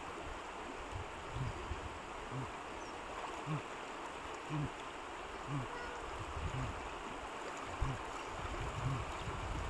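Shallow river water flowing steadily and sloshing around wading legs, with a soft low splash about once a second as they step.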